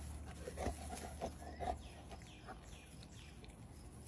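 Five-week-old puppies squeaking and whimpering: several short squeaks in the first two seconds, then a few fainter, high, falling whines.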